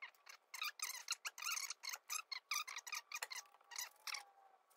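A quick run of short, high-pitched squeaks, several a second, as the Allis-Chalmers 175's rear axle assembly is pushed and slid into the rear housing. The squeaks thin out near the end.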